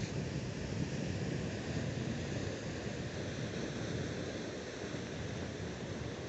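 Steady wash of sea surf churning against the rocks below, with wind rumbling on the microphone.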